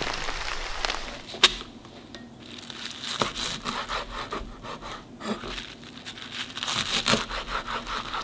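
Kitchen knife slicing through a bunch of garlic chives on a wooden cutting board. One sharp knock of the blade on the board comes about a second and a half in, then a run of quick crisp cuts, several a second.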